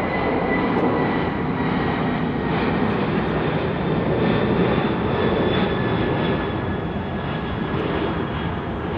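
Boeing 747-400 freighter climbing out after takeoff, its four jet engines giving a loud, steady roar. A high whine in the roar slides slowly down in pitch, and the sound fades slightly near the end as the jet moves away.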